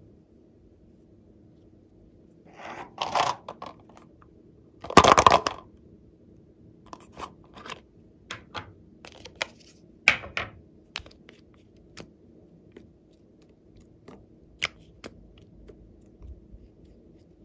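Hands handling plastic makeup cases and lipstick over a bowl of slime: scattered sharp clicks and taps, with two longer noisy bursts about three and five seconds in, the second the loudest.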